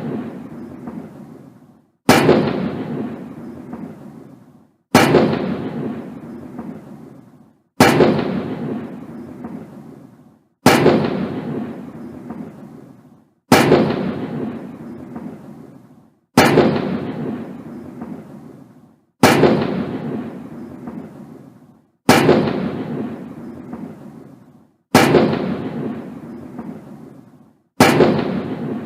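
Ceremonial 21-gun salute: ten shots at an even pace, about one every three seconds, each a sharp bang followed by a long rolling echo that dies away before the next.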